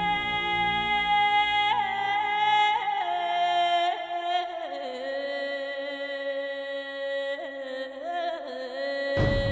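Background music: a slow melody of long held notes. The bass drops out about halfway through and comes back in suddenly just before the end.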